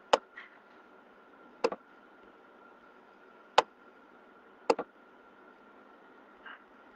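Four sharp clicks a second or two apart, the second and fourth doubled, with a softer tick near the end, over a faint steady hiss and thin hum.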